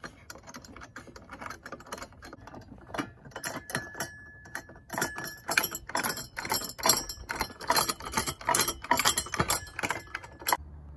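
Small metal clicks and rattles of nuts being threaded by hand onto the bolts of a metal mounting bracket, getting quicker and louder in the second half and stopping just before the end.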